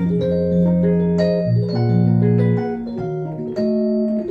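Korg Krome keyboard playing a Rhodes electric-piano patch: held chords over a low bass line, with new notes struck every half second or so.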